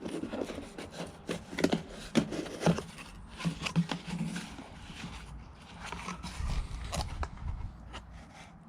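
Handling noise: a run of irregular clicks, taps and scrapes as packaging and parts are moved about by hand.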